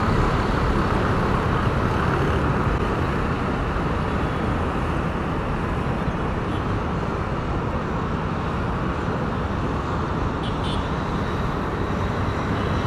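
Jet engines of a Boeing 737 airliner at takeoff thrust during the takeoff run and climb-out: a steady, even engine noise that eases slightly as the aircraft climbs away.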